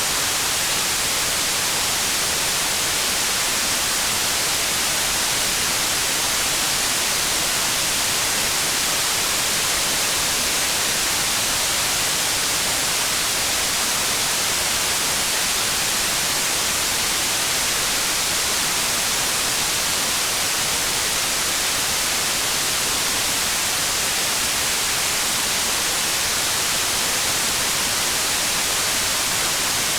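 Steady, even hiss of rain, unbroken and unchanging, with no single drops, thunder or other sounds standing out.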